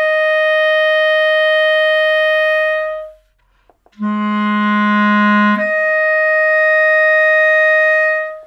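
Clarinet holding the high note a twelfth above low B-flat until about three seconds in, then stopping. After a short pause with a few faint clicks, it plays low B-flat again for a second and a half. When the thumb presses the register key, the note leaps up a twelfth and is held until near the end.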